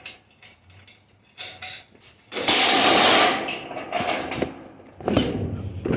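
Scrap being handled and sorted: scattered clinks and knocks, with a loud scraping rush lasting about a second midway through.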